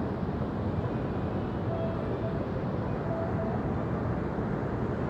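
Steady low rumble of waterfront background noise, with a couple of faint short tones in the middle.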